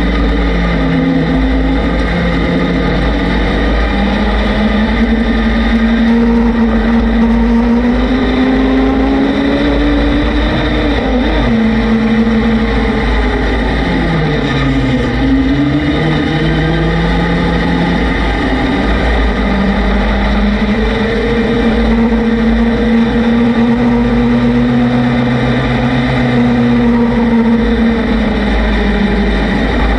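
Vehicle engine running under way, its pitch rising and falling slowly as the throttle changes, with a deep dip in the middle before it climbs again. Heavy wind rumble on the microphone throughout.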